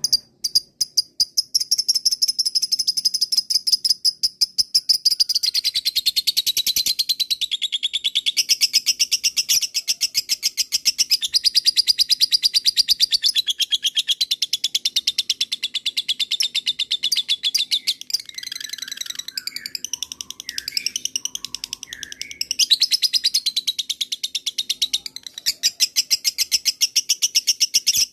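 Lovebird chattering in a long, fast, unbroken string of high chirps: the drawn-out 'ngekek' song that keepers prize. Partway through, the run gives way briefly to lower, gliding squeaks.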